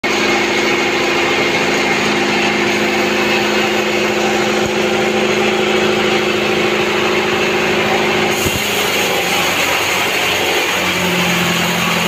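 A 42-inch sawmill band saw running loud and steady, its blade ripping through a teak log over a constant motor hum. About eight and a half seconds in the sound changes suddenly, settling into a lower steady hum.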